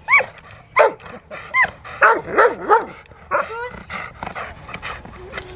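Rottweiler barking repeatedly, about eight barks in the first four seconds, some of them higher and yelping, then quieter.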